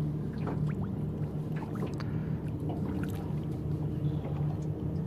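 A boat engine idling with a steady low hum, with a few light water splashes and slaps as a large flathead is held in the water beside the aluminium hull.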